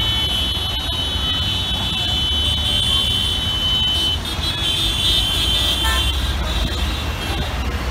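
Heavy slow-moving road traffic of cars, auto-rickshaws, buses and trucks, with engines rumbling steadily. A vehicle horn is held for about the first four seconds, and more horns honk about five to six seconds in.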